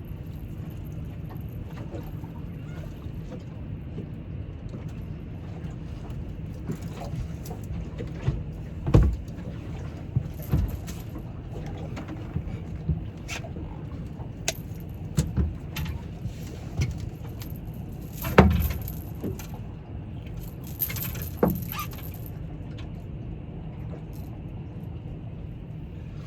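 Steady low rumble with scattered clicks, knocks and light rattles, as of fishing gear being handled in a boat. The sharpest knocks come about nine seconds in and twice between eighteen and twenty-two seconds in.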